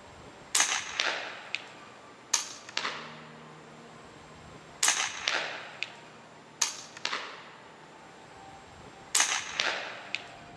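Five shots from an FX Wildcat PCP air rifle, one every two seconds or so, each a sharp crack. Each shot is followed about half a second later by a second, fainter crack.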